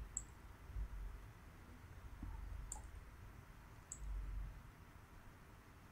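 Three faint computer mouse clicks, irregularly spaced, over a low background rumble.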